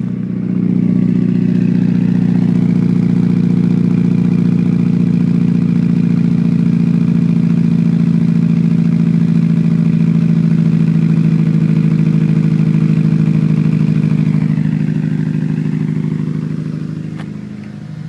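Mitsubishi Lancer Evolution's turbocharged four-cylinder on E85 running after a cold start, misfiring; the owner pulls a cylinder 1 misfire code for it. The engine speed eases down and the sound gets a little quieter near the end.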